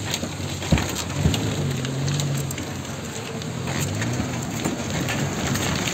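A 4x4 engine working hard in low gear, its pitch rising and falling, as the tyres churn through deep loose sand and dirt with a steady crunching hiss. Two sharp knocks come about a second in, as the vehicle jolts in the ruts.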